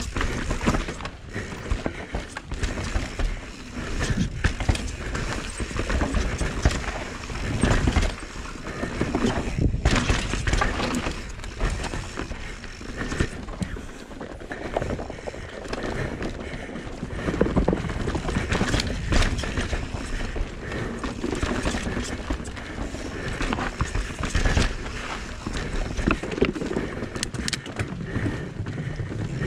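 Norco Sight full-suspension mountain bike descending a forest dirt trail: tyre noise on the dirt with a constant rattle and clatter of the bike's chain and frame over bumps. The wheels knock and clatter over the wooden cleats of a log ride and the planks of an elevated boardwalk.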